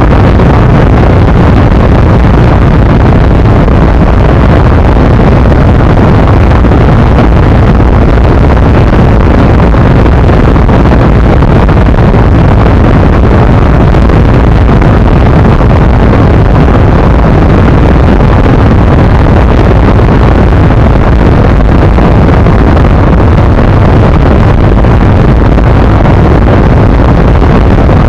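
Loud, steady wind noise buffeting the microphone of a ZiD 250 motorcycle ridden fast, with the motorcycle running underneath it.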